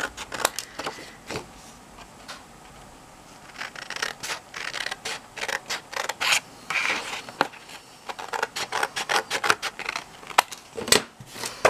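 Scissors snipping through patterned card in a run of short cuts, with the card rustling as it is turned and handled.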